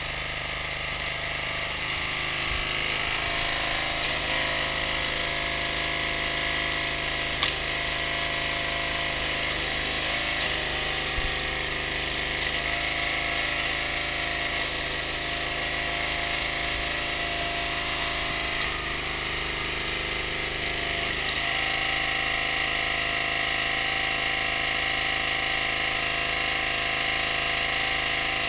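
Briggs & Stratton 6.5 hp petrol engine running steadily, driving a hydraulic log splitter, its note shifting several times as the splitter works. A single sharp crack about seven and a half seconds in.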